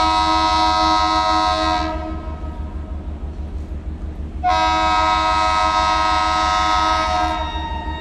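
WAG-9 electric locomotive's air horn blowing a loud multi-note chord twice: a blast that cuts off about two seconds in, then a second, about three-second blast, over a low steady rumble. It is a warning to people crossing the tracks.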